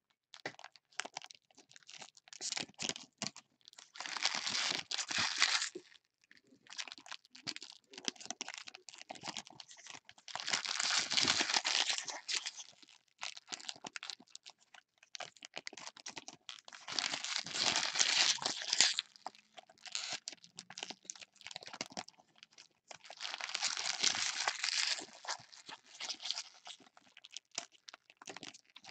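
Foil trading-card pack wrappers crinkling and being torn open by gloved hands. Scattered short crackles, with four longer, louder stretches of crinkling about every six seconds.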